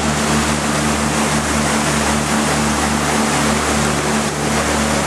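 Motorboat engine running at a steady speed, heard from on board, over a constant rush of water.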